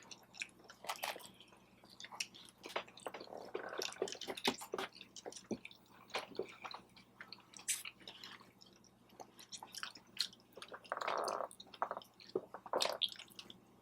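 A person chewing food up close, with many short, wet clicks and smacks of the mouth.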